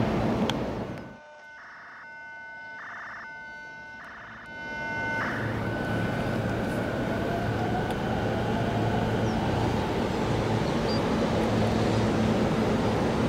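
Electric commuter train pulling away after an emergency stop, its traction motors giving a faint whine that rises in pitch as it gathers speed, under a steady rumble of running noise. Just before it moves off, an electronic tone sounds in a few short, evenly spaced pulses.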